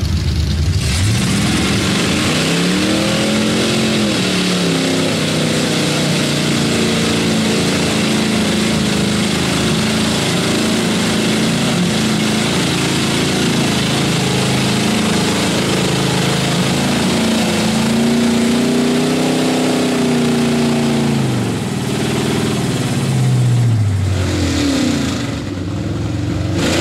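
Mud-bog pickup truck's engine revving hard as it churns through a mud pit, its pitch climbing and falling in long surges over several seconds; the revs drop off near the end, then climb again.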